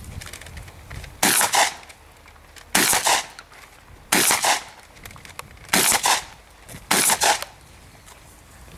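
Five shotgun shots, about a second and a half apart, each with a short echo.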